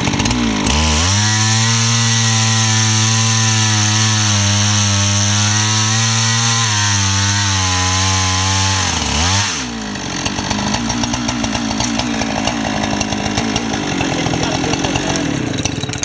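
Husqvarna 395XP two-stroke chainsaw on an Alaskan chainsaw mill with a 4-foot bar, revving up less than a second in and running at steady full throttle while ripping a slab from a log. About ten seconds in the engine note drops off to a lower, rougher running sound.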